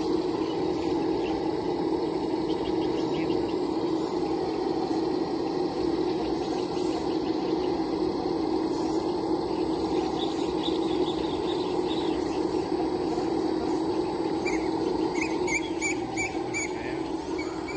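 RC scale hydraulic excavator running, its hydraulic pump giving a steady whine as the boom and bucket work. Birds chirp near the end.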